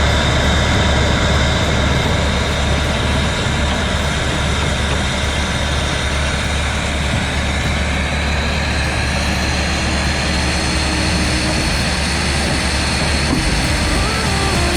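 Heavy diesel machinery running at a steady, loud drone: a soil screening plant and excavator at work. A high tone creeps up slightly in pitch about halfway through.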